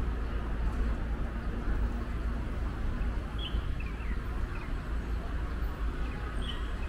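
Street ambience: a steady low rumble of traffic, with a few short high chirps from about halfway through and again near the end.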